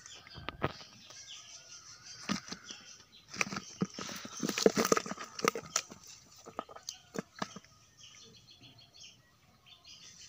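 Small live fish, climbing perch (koi), flapping and thrashing in a plastic bucket: a scatter of quick wet slaps and knocks against the plastic, busiest around the middle and thinning out near the end.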